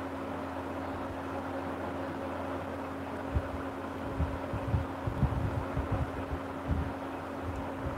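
Steady background hum and hiss from the recording setup, with irregular low thumps starting about three and a half seconds in.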